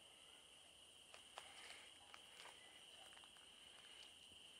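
Faint, steady high chirring of crickets, with a few soft clicks scattered through it.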